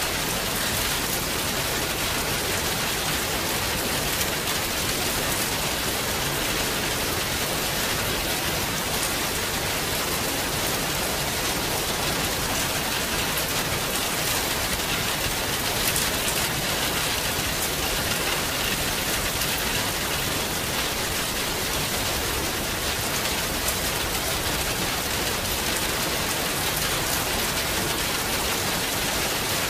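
Steady rain falling: an even hiss with occasional sharper drop ticks.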